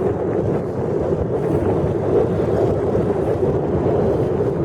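Steady engine and driving noise of a vehicle under way, with wind buffeting the microphone.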